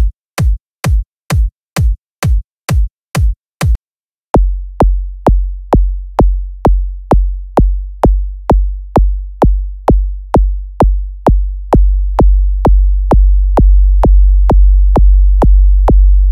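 Programmed kick drum looping in FL Studio's step sequencer, about two hits a second. First comes a short, clicky kick sample. After a brief gap it turns into the Fruit Kick synth's deep sub-bass kick, whose booming tail grows longer and louder until the hits run together into one continuous low drone.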